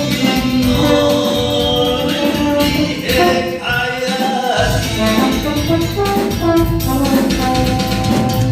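Music: a song with singing and brass over a band backing, with a deep bass line coming in about halfway through.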